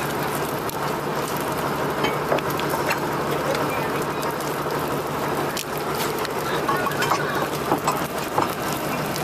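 Fishing boat's engine running steadily, with scattered sharp taps and clatter over a dense hiss.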